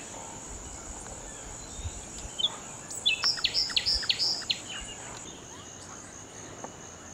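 Tropical rainforest ambience: a steady, high, pulsing insect buzz, with a bird calling a quick run of about six short, high notes about three seconds in.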